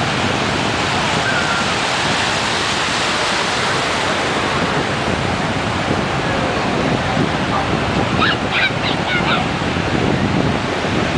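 Ocean surf breaking and washing through the shallows, with wind on the microphone. A few brief high-pitched cries sound about eight seconds in.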